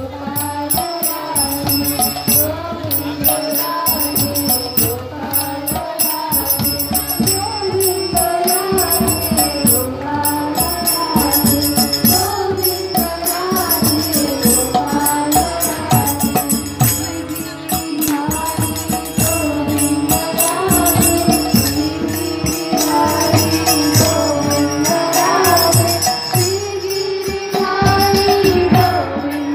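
Devotional Hindu kirtan: women and girls singing a call-and-response chant into microphones, accompanied by a harmonium and jingling hand cymbals (kartals) keeping a steady rhythmic beat.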